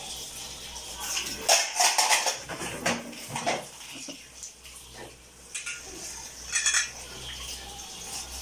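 Dishes, metal pots and cutlery clinking and clattering in a stainless steel sink as they are hand-washed, in irregular bursts with the loudest clatter about two seconds in and again near the end.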